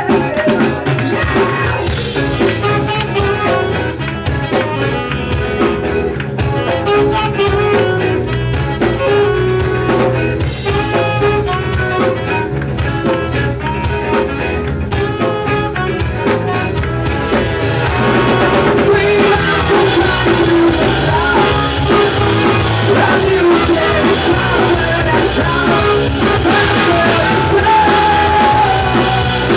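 Ska-punk band playing live: drums, bass and guitars with a steady beat, getting louder and fuller about two thirds of the way in.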